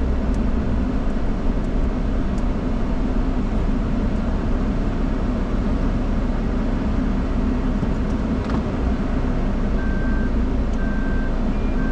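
In-cabin noise of a 4x4 vehicle on the move: a steady low engine and road rumble. Near the end, a short electronic beep starts repeating about once a second.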